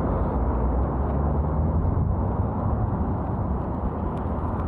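Wind rushing over the microphone during a bicycle ride: a steady low rumble.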